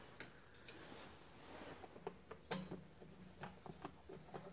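Faint clicks and ticks of hands working the small plastic controls on a snowblower's control panel, with one sharper click about two and a half seconds in and a run of small ticks near the end.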